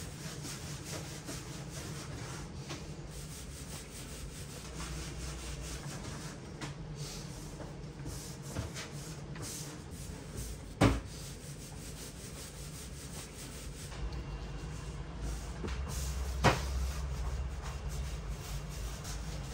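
Gloved hands working minced meat and onion filling and folding it into samsa dough, a soft rubbing and squishing over a steady low hum. Two sharp knocks stand out, one about eleven seconds in and another a few seconds later.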